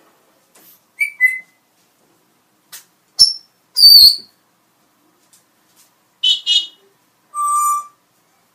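Pet parrot whistling and calling in short separate bursts: two quick chirps, then a sharp high whistle and a loud falling squawk, a rapid trill, and a steady beep-like whistle near the end.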